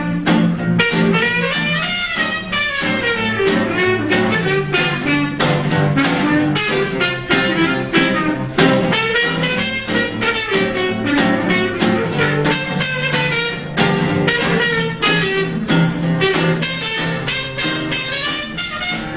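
Instrumental background music in a jazz style, with a steady beat.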